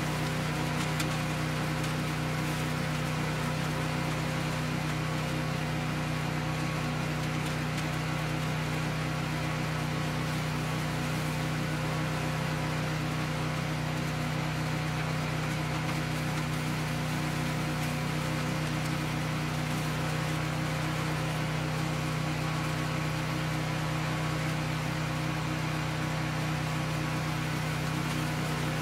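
A cast-iron Kohler K341 single-cylinder engine on an Allis Chalmers 416 garden tractor runs with a steady drone, driving a composter attachment that shreds hand-fed dry leaves.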